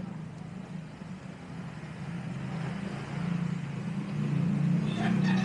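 A motor vehicle's engine running steadily, growing louder over the last couple of seconds as it draws closer, over general street noise.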